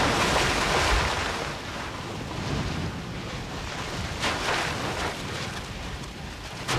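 Black natrocarbonatite lava churning and spattering from a small vent: a rushing noise that swells in the first second and again about four seconds in.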